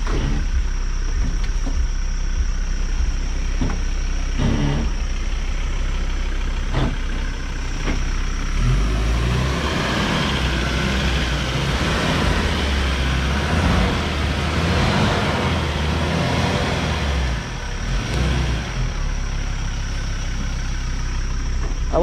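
4x4 truck engine running under load, with a few sharp knocks, then revving harder and rougher from about eight seconds in until about seventeen as it tries to get traction on a muddy climb.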